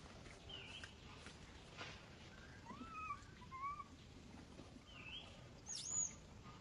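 Faint, short whimpering coos from young long-tailed macaques, each a brief arching squeak; a small run of them about three seconds in and a higher, louder squeal about six seconds in.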